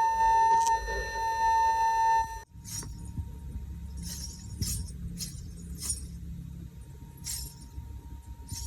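A loud held tone that cuts off abruptly about two and a half seconds in, followed by a string of about seven short, bright jingling sounds spaced irregularly, roughly one a second.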